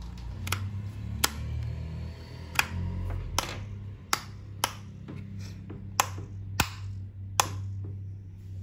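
Plastic top air-vent sliders on a Scorpion EXO-491 full-face motorcycle helmet clicking open and shut under a finger: about nine sharp clicks at uneven spacing.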